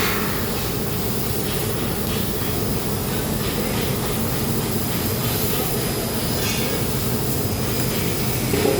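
Steady mechanical rumble with a hiss above it, running without a break at an even level.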